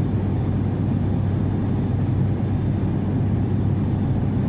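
Steady low drone of an airliner's engines heard from inside the cabin: an in-flight airplane ambience.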